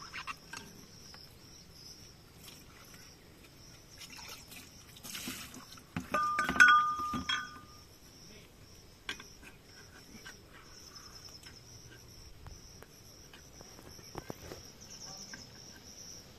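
Scattered clicks and knocks of hand tools and metal spin-on filter canisters being handled. About six seconds in, one louder clank rings on briefly. Insects chirr steadily in the background.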